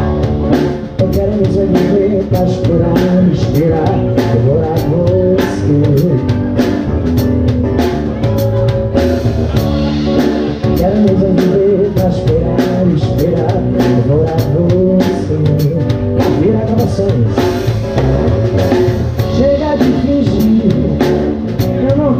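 Live band playing Brazilian popular music (MPB): a drum kit played with sticks keeps a steady beat with cymbal hits under electric guitar, and a male voice sings.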